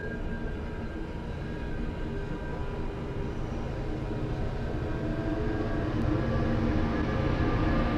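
MBTA commuter train of bilevel coaches rolling past: a steady rumble of wheels on rail with a thin, high squeal held over it, growing louder over the last few seconds.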